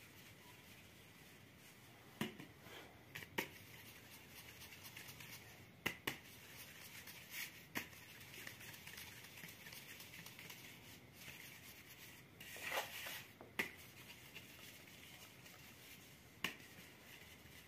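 Flour being sifted by hand through a plastic colander into a metal basin: a faint steady rustle of falling flour, broken every few seconds by sharp taps of the sieve against the basin, with a small cluster of them about twelve to thirteen seconds in.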